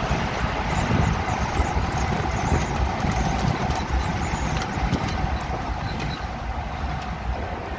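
A 1985 Jeep CJ7's 4.2-litre straight-six running steadily at cruising speed, mixed with tyre and wind noise, easing off slightly near the end.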